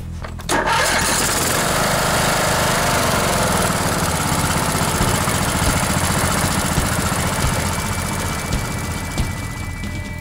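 Briggs and Stratton 16.5 horsepower Intek OHV riding-mower engine starting about half a second in and running steadily on its freshly rebuilt Walbro carburetor, easing slightly quieter near the end.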